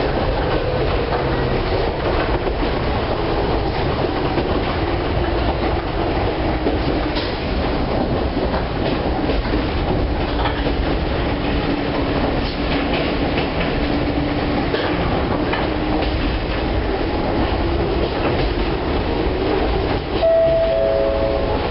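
Chichibu Railway 1000 series electric train (a former JNR 101 series) heard from inside the passenger car while running at speed: a steady rumble and hum from the running gear, with wheels clacking over rail joints now and then. Near the end a short series of falling tones begins.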